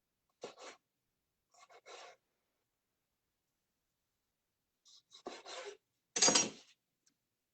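A sharp kitchen knife slicing through tomatoes on a cutting board: about four short cutting strokes, the last, about six seconds in, the loudest.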